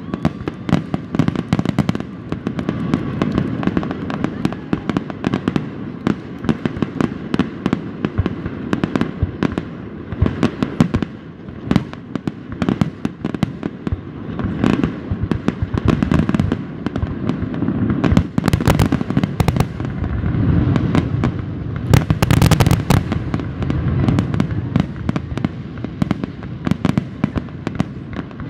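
Fireworks going off in quick succession: a dense, continuous string of bangs and crackles over a low rumble, heaviest a little past the middle.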